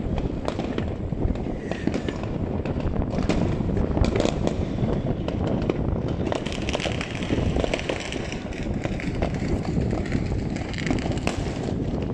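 Many fireworks going off at once: a continuous low rumble of distant bangs with frequent sharp cracks and pops overlapping, without a break.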